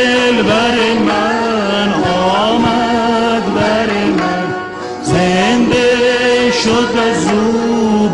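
Persian classical song: a male voice singing in long, ornamented, wavering lines over santur and long-necked lute accompaniment, easing off briefly about four and a half seconds in.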